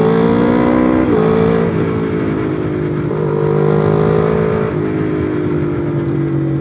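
Honda CBR250RR parallel-twin engine running under way as the bike picks up speed. The engine note steps up and down several times as the throttle is opened and eased, with wind and road noise underneath.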